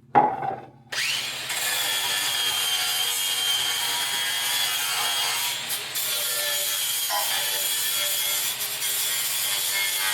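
A handheld power tool spins up with a rising whine and then runs steadily, grinding corrosion and rust off a metal battery hold-down. A short, loud sound comes just before it starts.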